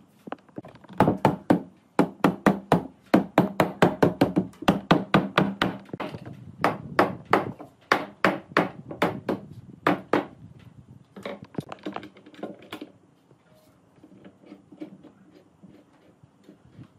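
Mallet knocking on a pine table frame, a fast run of sharp wooden knocks, three or four a second, that thins out about ten seconds in and dies away a few seconds later.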